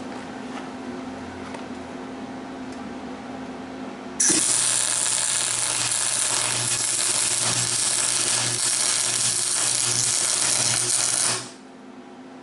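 Thermal Arc MIG welder laying one weld run: the arc starts suddenly about four seconds in, runs steadily for about seven seconds and cuts off abruptly.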